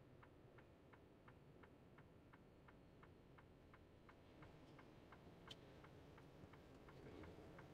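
Truck cab's turn-signal indicator ticking faintly and evenly, about three ticks a second, over near silence.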